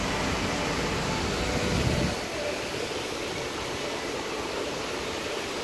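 Artificial rock waterfall pouring into a pool: a steady, very noisy rush of falling water. A low rumble under it stops about two seconds in.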